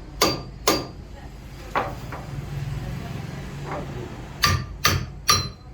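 Hammer striking steel in a truck axle repair: an irregular series of about six or seven sharp metal blows, a pause in the middle, then three quick strikes near the end that ring with a metallic tone.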